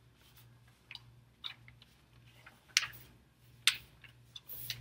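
Paper pages of a test booklet being turned and handled: a few short crisp rustles and flicks, then a longer rustle near the end, over a faint steady low hum.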